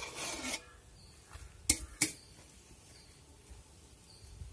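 Two sharp clicks about a third of a second apart, after a short hiss at the start; faint high chirps repeat in the background.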